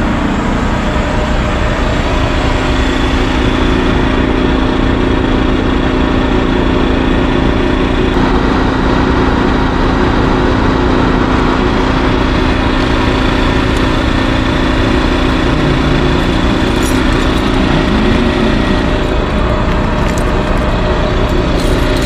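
RV's onboard generator running steadily, a constant engine drone with a steady hum.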